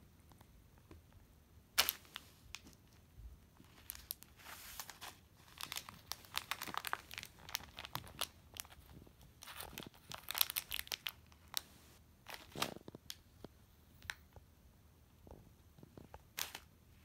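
Small plastic snack packet crinkling and rustling as a cat bites and paws at it, in scattered short bursts with pauses between.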